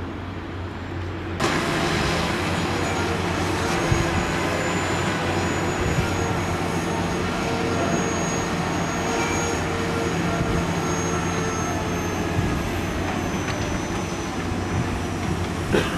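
Heavy construction machinery running; about a second and a half in it cuts abruptly to the louder, steady running of a ground-drilling auger rig's diesel engine, with a thin high whine and a few knocks.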